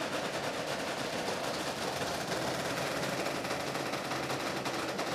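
Earthquake test rig holding a timber-framed, plasterboard-lined test house under load: a steady, dense, rapid rattling crackle with a low hum underneath.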